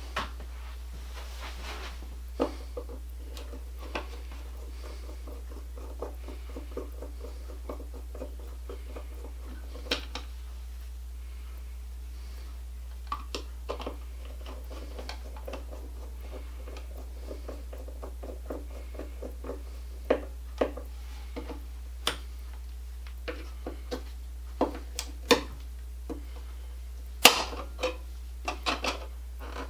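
Screwdriver and hands working on a wall light switch's cover plate and screws: scattered small metal clicks, taps and scrapes, with a sharper knock near the end, over a steady low hum.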